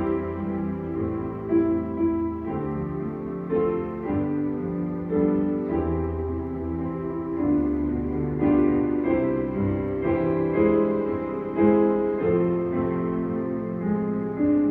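Piano music, held chords changing every second or so.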